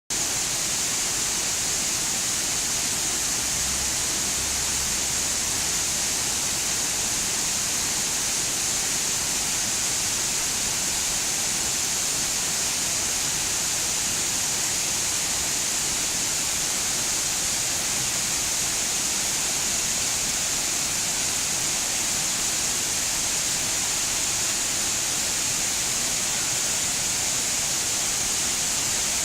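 Tamul waterfall's falling water: a steady, even rushing hiss that does not change.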